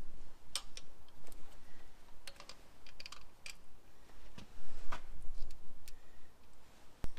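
Steel spanner clicking and clinking on the terminal nuts of a battery isolator switch as the cable eyes are tightened: scattered, irregular sharp metal clicks, with a louder knock near the end.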